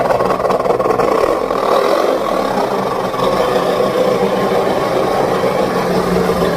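Diesel engine of an Isuzu Elf short truck running steadily through its exhaust, giving the snoring growl ("ngorok") it is shown off for.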